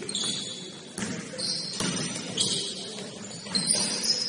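Basketball game on a gym court: a few ball bounces with short, high-pitched sneaker squeaks on the floor over the hall's low murmur.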